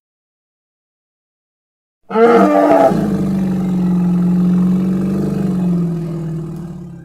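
A triceratops creature roar sound effect: about two seconds of silence, then one long, deep bellowing roar. It opens with a brief wavering cry and holds a steady pitch for about four seconds before fading away near the end.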